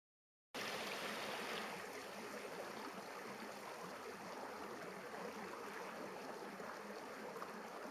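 River water rushing steadily over rocks in shallow rapids, a constant rushing hiss that begins about half a second in.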